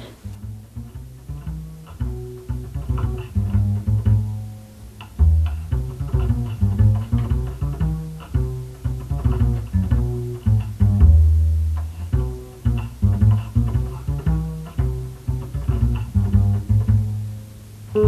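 Background music: a bass line of low, short notes that start sharply and die away quickly, in a steady rhythm.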